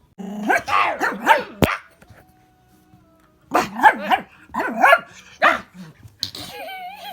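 Pet dog barking excitedly in two quick runs of barks a couple of seconds apart, with a sharp click during the first run and a wavering whine near the end.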